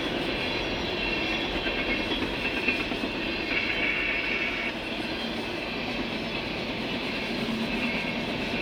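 A CSX freight train's cars rolling past on the rails: a steady rumble of wheels on track.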